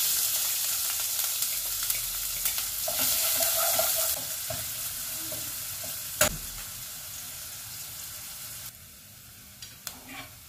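Chopped onions sizzling in hot olive oil in a pot while being stirred with a wooden spoon. The sizzle is loudest at the start and dies down steadily, with one sharp knock about six seconds in.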